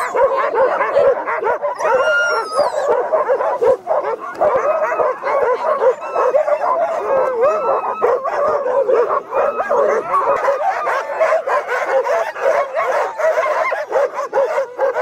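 A team of harnessed sled huskies barking and yipping all at once in a constant, overlapping chorus: the clamour of sled dogs hitched up and waiting to run.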